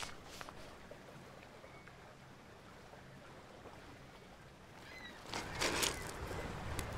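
Quiet outdoor ambience with a faint low hum. A couple of footsteps crunch on loose shoreline stones at the start, and a short, louder noisy rush comes about five seconds in.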